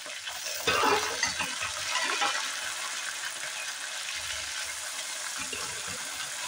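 Hot oil with fried onions sizzling steadily as pieces of meat are added to fry. The sizzle surges loudly about a second in, then settles to a steady hiss.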